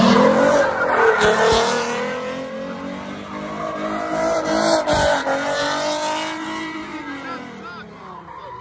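Car engine revving hard, pitch rising and falling as the car spins donuts, with tires squealing. There are a few sharp pops about a second in and again around five seconds. The sound fades toward the end.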